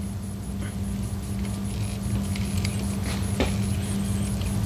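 Steady low hum with a shifting low rumble from a handheld camera being moved and refocused, and a few light clicks and taps, the sharpest about three and a half seconds in.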